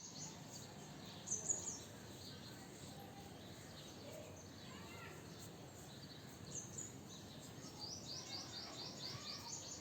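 Outdoor background noise with small birds chirping: short high chirps about a second and a half in and again near seven seconds, then a quick run of repeated chirps near the end.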